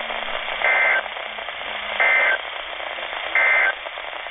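NOAA Weather Radio SAME data tones from a Midland weather radio's speaker: three short bursts of warbling two-tone data about a second and a half apart, over steady radio hiss. The bursts are short enough to be the end-of-message code that closes an alert broadcast.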